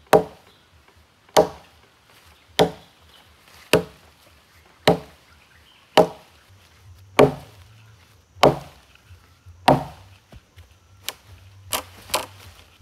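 Stone axe chopping into a freshly felled tree trunk: nine heavy, evenly paced strikes a little over a second apart, then a few lighter, quicker knocks near the end.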